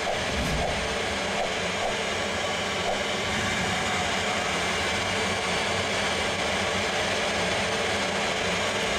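Airbus A320 flight simulator playing steady jet engine and airflow noise inside the cockpit, an even rushing sound that holds at one level without change.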